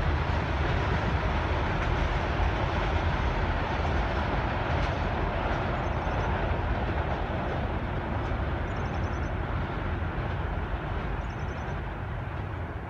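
Passenger train rolling away along the track, its rumble slowly fading as it recedes.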